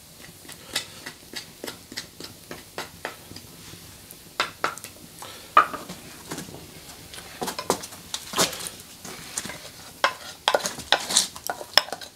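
Wooden spoon stirring a stew in an earthenware pot and scraping a clay mortar, with irregular clacks and knocks of wood on pottery. The knocks come louder and closer together near the end, as the picada is scraped out of the mortar into the pot.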